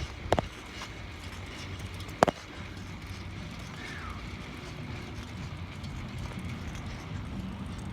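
Steady outdoor background noise with two sharp clicks, one near the start and one about two seconds later.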